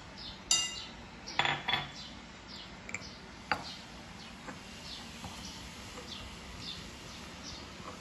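Granite pestle knocking against a granite mortar a few times in the first half as a liquid som tam dressing is mixed. Through the second half a bird chirps steadily in the background, short falling notes about twice a second.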